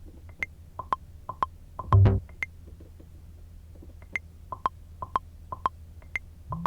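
Beat-making software playing short pitched metronome-like clicks at about two a second, a higher accented click on every fourth beat, with one deep bass hit about two seconds in and the clicks pausing for a moment after it.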